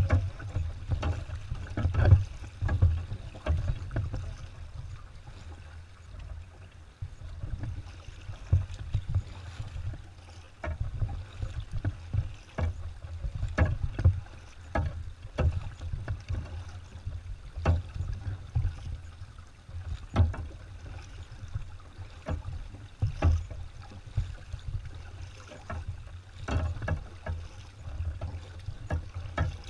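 Double-bladed kayak paddle strokes dipping and splashing in the river, alternating sides roughly once every second or so, over a steady low rumble.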